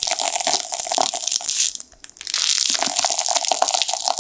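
Close-up crinkling and crackling of a plastic squeeze pouch of ready-whipped chocolate cream as it is pressed and the cream is piped out through its star nozzle. It stops for a moment about two seconds in, then carries on.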